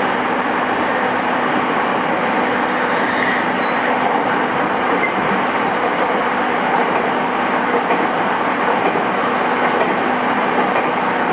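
JR East E217 series electric multiple unit running between stations, heard from inside the car: a steady rolling noise of wheels on rail with a few faint steady tones.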